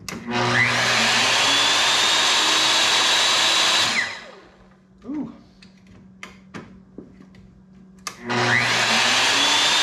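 Hitachi C10RJ table saw motor, with no blade fitted, switched on: it spins up with a rising whine, runs steadily for about three and a half seconds, then is switched off and winds down. About eight seconds in it is started again and spins up the same way. The saw is starting and running normally again after its faulty soft start was replaced.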